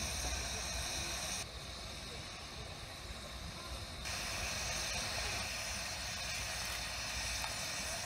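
Miniature 15-inch-gauge steam locomotive 'Hercules' standing at rest with a steady hiss of steam, with low rumble from wind on the microphone. The sound drops quieter from about one and a half to four seconds in, then the hiss returns.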